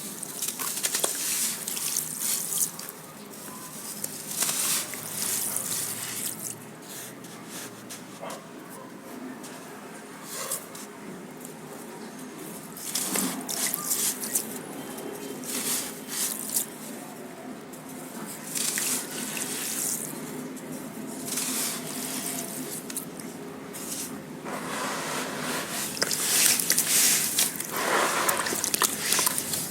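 Crunchy sand crumbling and dropping into water: irregular bursts of crisp crackling and splashing, with a longer, louder stretch near the end.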